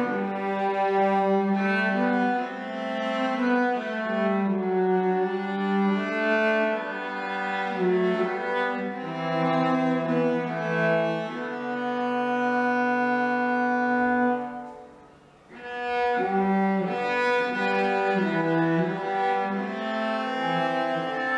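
Two cellos playing a bowed duet of a traditional tune, long sustained notes moving in melody. The playing breaks off for about a second roughly two-thirds of the way through, then starts again.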